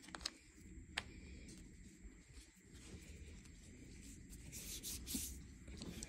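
Fingers crumbling and rubbing a dry, crumbly blue cornstarch-and-glitter mudpie, a soft scratchy crunching. There are two sharp ticks in the first second, and a louder stretch of crunching comes a little after four seconds.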